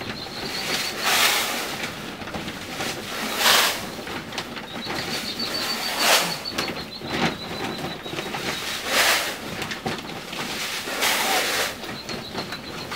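Handfuls of super-fine chick crumbs thrown across chip paper laid over gravel: five throws two to three seconds apart, each a short rustling patter of feed landing on the paper.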